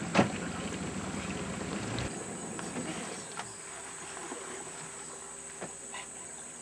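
A boat motor runs with a steady low hum, and a sharp knock comes just after the start. About two seconds in the motor sound cuts off, leaving quieter riverbank ambience with a steady high-pitched insect buzz and a few faint clicks.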